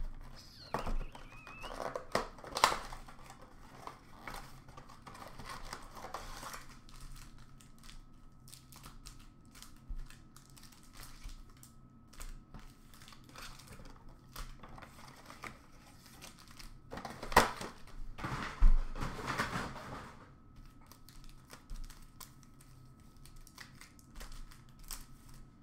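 Foil trading-card pack wrappers and a cardboard card box being torn open and handled: irregular crinkling and rustling, loudest in a burst a little past the middle.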